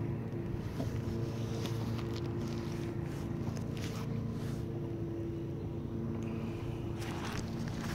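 A motor running steadily, a low hum that holds one pitch throughout, with a few faint short knocks over it.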